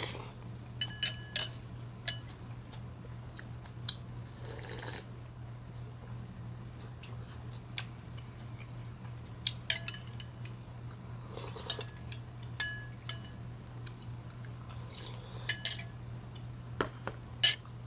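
A metal spoon clinking against a ceramic bowl of ramen broth in scattered, ringing taps, with short sips and slurps of soup between them.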